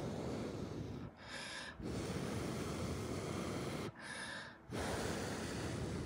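A person blowing breath close to the microphone: long rushing exhalations, each about two seconds, with two short intakes of breath between. The blowing is on freshly applied stamping lacquer to help it dry.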